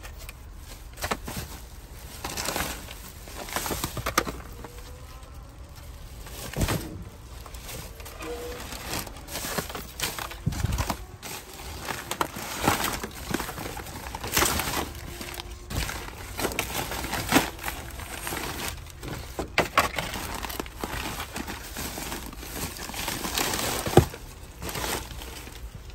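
Plastic garbage bags and loose trash rustling and crinkling in irregular bursts as a gloved hand rummages through a dumpster, with a sharp knock near the end.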